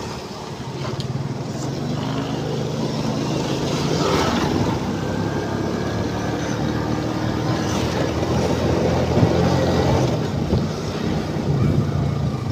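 Small Suzuki underbone motorcycle's engine running under way, its pitch and loudness climbing over the first few seconds as it pulls away and gathers speed, then holding steady.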